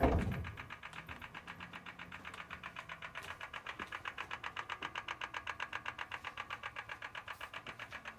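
An M4's engine running with a fast, even ticking, roughly eight ticks a second, the ticking noise in question; a single thump sounds right at the start.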